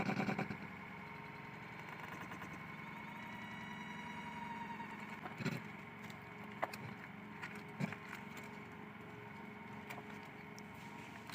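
A steady mechanical hum, with a few short knocks in the second half.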